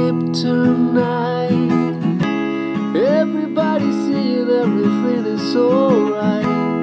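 Acoustic guitar strummed in a steady rhythm, with a voice singing a line over it.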